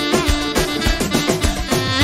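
Instrumental passage of an Albanian folk-pop dance song in an orchestral arrangement: a steady drum beat under an ornamented melody line.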